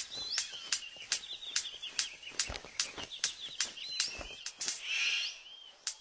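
Male superb bird-of-paradise in courtship display: sharp clicks about two to three a second, with a wavering high warble running through most of it and a short rasping burst about five seconds in.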